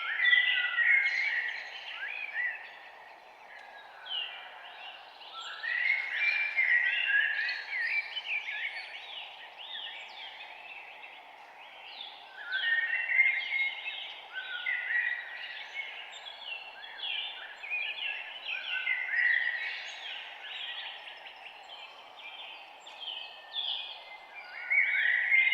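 Several songbirds chirping and singing in overlapping bouts of quick high, rising and falling notes, over a steady low background hum of outdoor noise.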